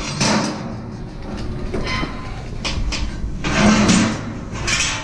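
Handling noise: a series of about five scrapes and knocks, a second or so apart, over a low rumble.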